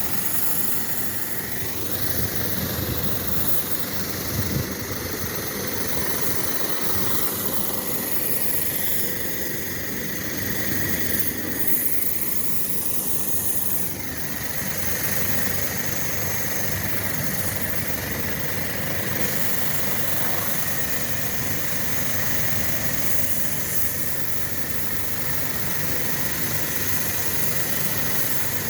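Air-conditioning unit running steadily: a constant mechanical hum with a steady low drone and an even rushing noise that holds level throughout.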